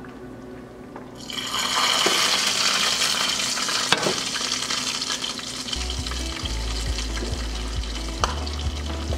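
Hot leftover bacon grease sizzling in a frying pan, starting suddenly about a second in and then slowly dying down, with a low hum joining about six seconds in.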